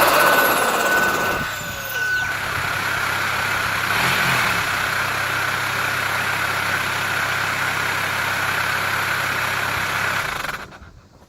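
Turbocharged car engine coming down from a rev with a high whistle falling away, then idling steadily, blipped once briefly about four seconds in. The sound fades out near the end.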